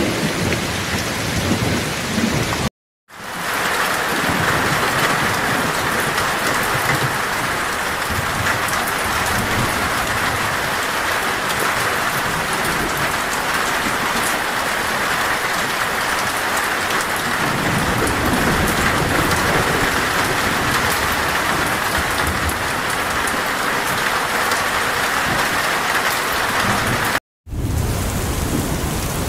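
Steady heavy rainfall with low rumbles of thunder underneath, strongest near the start and in the second half. The sound cuts out to silence for a split second twice, about three seconds in and near the end.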